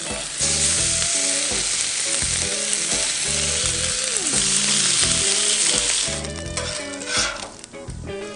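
Bacon strips sizzling loudly on a hot Camp Chef flat-top griddle as they are laid down. The sizzle starts suddenly about half a second in and eases off after about six seconds.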